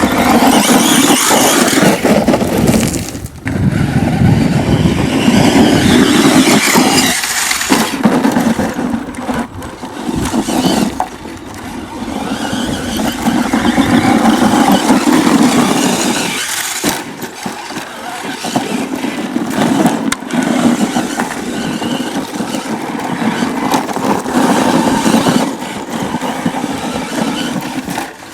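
Large 1/5-scale electric RC monster truck with a brushless motor being driven, its motor and drivetrain whining along with tyre noise, the level repeatedly rising and falling as it speeds up and eases off, with several brief drops.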